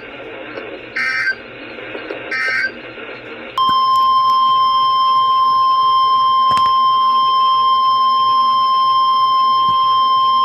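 NOAA Weather Radio alert signals: two short digital data bursts of the SAME code, about a second and a half apart, over radio hiss. About three and a half seconds in, the loud, steady 1050 Hz weather alert tone begins, announcing the next warning.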